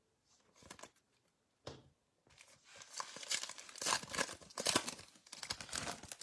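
Foil wrapper of a football trading card pack crinkling and tearing open. It starts with a few faint clicks and builds into steady crackling about two and a half seconds in.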